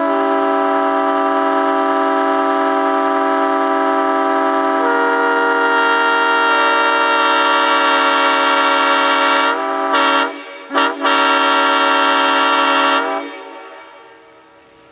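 Locomotive air horn blowing a loud, steady chord of several tones, with another tone joining about five seconds in. Near the ten-second mark it cuts off twice for a moment and sounds again, then stops about thirteen seconds in.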